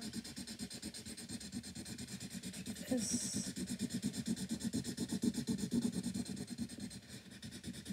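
Felt tip of a Sharpie highlighter rubbing on paper in quick back-and-forth strokes as an area is coloured in. It makes a rapid, uneven scratchy rasp.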